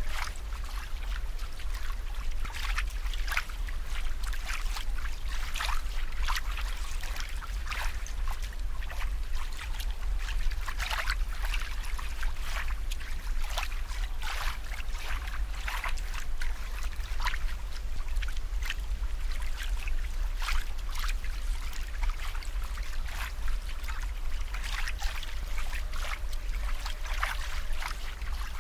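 Water trickling and bubbling in many small irregular splashes, over a steady low hum.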